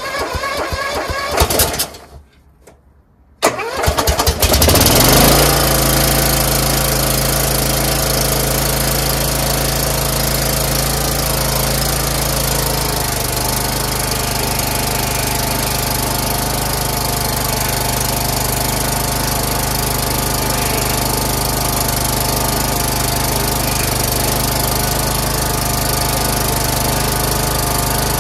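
Craftsman LT2000 lawn tractor's engine being started: the starter cranks for about two seconds and stops, cranks again about three and a half seconds in, and the engine catches and runs steadily. About 13 seconds in the engine note changes, then holds.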